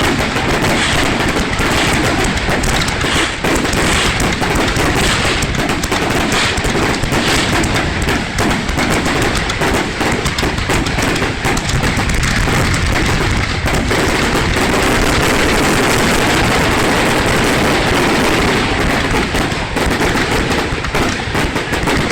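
Aerial fireworks display: a dense, unbroken run of bangs and crackling bursts, steady and loud throughout.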